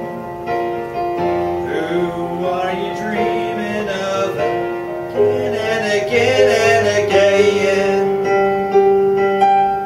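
Yamaha CP4 digital stage piano playing a slow passage of held notes and chords.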